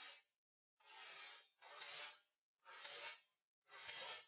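An axe blade being sharpened with rasping strokes of a sharpener along the steel, about one stroke a second, evenly paced.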